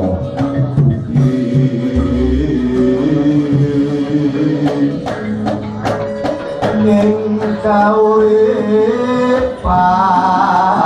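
Javanese gamelan playing palaran: a singing voice holds long, gliding tembang phrases over struck bronze keyed instruments. A deep low stroke sounds about two seconds in, and the vocal line climbs higher in the second half.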